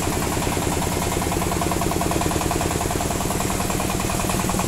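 The engine of a homemade mobile sawmill vehicle idling steadily, with a fast even pulse.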